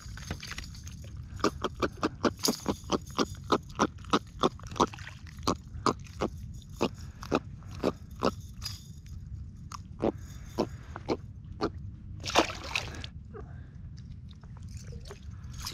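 A small jack held in the hand, grunting in a quick series of short croaks that thin out and slow down. Near the end there is one splash as the fish goes back into the water.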